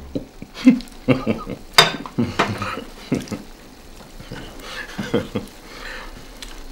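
Tableware clatter: a plate and cutlery knocking and clinking during a meal. There is a run of sharp clicks in the first two or three seconds, with softer, sparser ones after.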